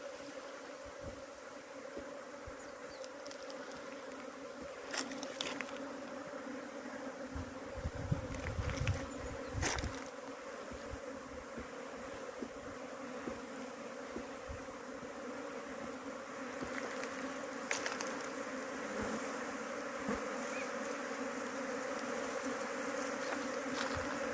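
Honey bees buzzing steadily around their hive: a continuous hum. A few sharp clicks and a brief low rumble come through about eight seconds in.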